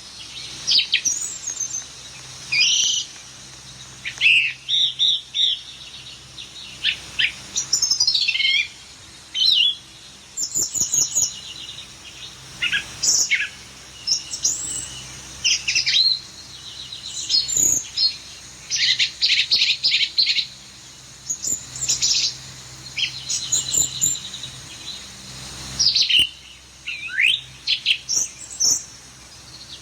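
A bird chirping and twittering in short bursts: quick sweeping whistles and fast trills, with short pauses between.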